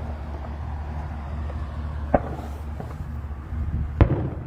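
Two firework bursts go off about two seconds apart, the second louder, over a steady low hum.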